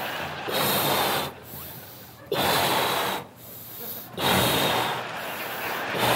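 A person blowing hard into a balloon to inflate it: three rushing breaths of about a second each, roughly two seconds apart, with quieter pauses for breath between.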